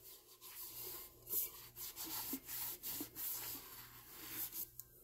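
Acetone-damp cotton tea towel rubbed over a sanded, glitter-coated epoxy tumbler: faint, repeated wiping strokes. The wiping cleans off sanding dust before the next coat of epoxy.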